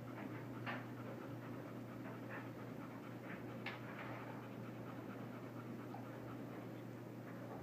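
Golden retriever mother panting softly, with a few short faint squeaks from her two-week-old nursing puppies. A steady low hum runs underneath.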